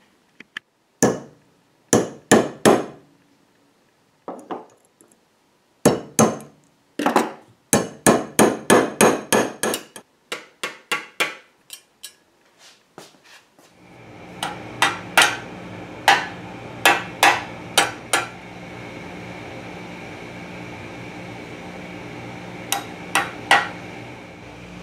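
Small ball-peen hammer tapping in the pins that fix nameplates to a painted milling-machine casting: sharp metal-on-metal taps in quick runs of two to several strokes. About 14 seconds in, a steady machine hum starts under the later taps.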